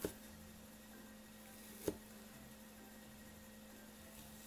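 Knife cutting through imitation crab sticks and tapping the wooden cutting board twice, about two seconds apart, the second tap louder, over a faint steady hum.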